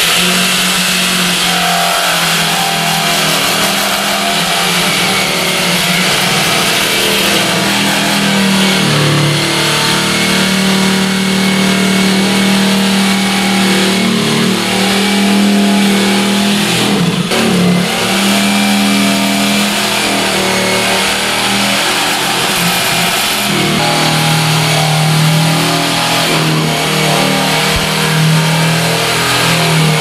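Electric jigsaw running and cutting a circular hole through a thick acacia (kikar) wood board, its motor hum steady with its pitch shifting slightly as the blade works round the curve. The sound briefly dips about halfway through.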